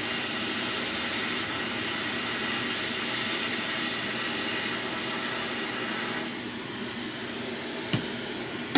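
Hot air rework gun of an 861D+ station blowing while desoldering a small part from a circuit board: a steady rush of air with a faint fan hum. About six seconds in the hiss drops to a lower, duller level, and a short click comes near the end.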